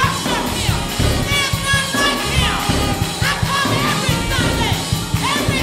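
Live gospel music: a woman leads the singing over a band with saxophone, with vocal runs that swoop up and down, and the choir and congregation clap along.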